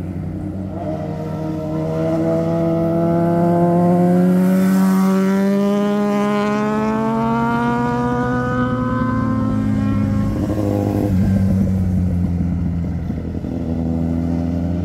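Motorcycle engines accelerating past, their pitch climbing steadily for several seconds as the nearest bike pulls through the gear. About ten seconds in, that engine sound breaks off and another motorcycle's engine takes over, rising again.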